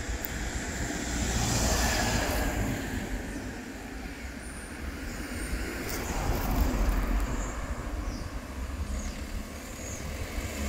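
Road traffic: cars passing on the road, the sound swelling and fading twice, over a steady low rumble.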